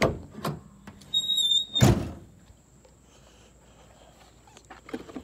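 Pickup truck tailgate being opened: a couple of latch clicks, a short high squeak, then the tailgate dropping open with a heavy thump about two seconds in.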